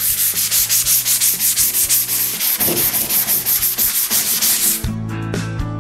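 Hand-scuffing a bare sheet-steel car fender with an abrasive block: quick, even back-and-forth scratchy strokes, about six or seven a second. This is the matting that roughens bare metal so epoxy primer keys to it. The rubbing stops suddenly about five seconds in, and guitar music takes over.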